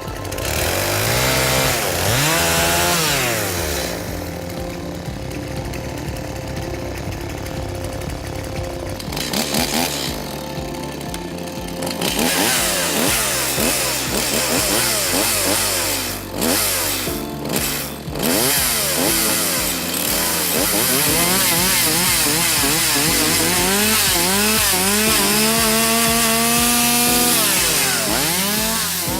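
Petrol chainsaw engine revving up and down, blipping the throttle and running at full speed for long loud stretches, with quieter low-revving spells in between.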